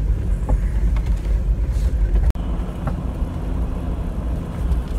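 Cabin noise of a lifted 1990 Jeep Cherokee XJ being driven: a steady low rumble from its 4.0 inline-six engine and drivetrain, with a few light knocks and rattles. The sound drops out for an instant a little over two seconds in.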